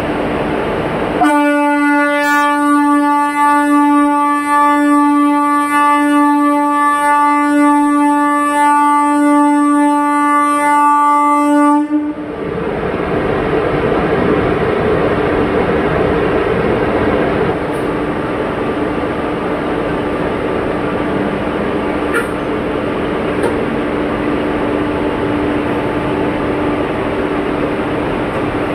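A WAG-7 electric locomotive's weird horn sounds one long, steady single-tone blast of about ten seconds and then cuts off abruptly. After it, the locomotive and train keep up a steady rumbling run as they pull slowly past.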